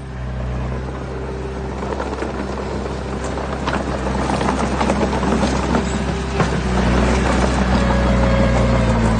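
Diesel engine of heavy earthmoving machinery running steadily, with stones crunching and clattering over it, growing louder from about two seconds in.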